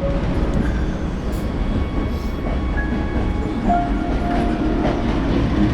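Sleeper train carriage running on the rails: a steady rumble and rattle of the moving coach, with a few faint brief high tones near the middle.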